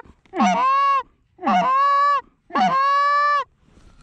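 Hand-blown goose call sounding three long honks, each breaking sharply from a low note up to a high held note.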